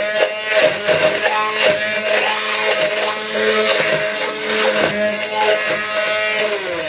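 Bosch hand blender running steadily, its blade pureeing fresh herbs, green chili and yogurt into a paste in a tall beaker, with irregular clicks as it chops through the ingredients.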